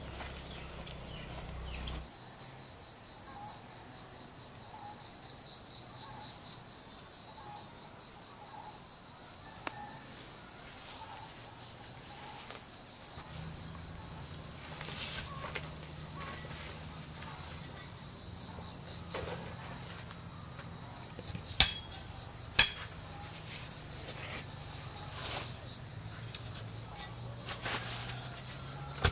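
Insects chirping in a steady, high, fast-pulsing chorus, with two sharp knocks about a second apart past the middle.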